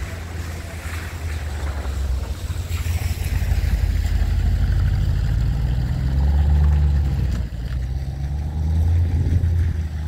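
Wind buffeting the microphone: a low, uneven rumble that swells in gusts, strongest a little past the middle and again near the end.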